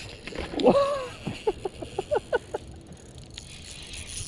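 A man's excited shout, then a quick run of short laughs, as a carp is hooked.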